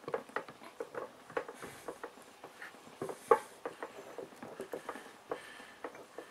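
Input gear of a Nissan Patrol TX12A transfer case being turned by hand to get its gears to mesh as the case halves go together: a string of light, irregular metal clicks and ticks, with one louder click about three seconds in.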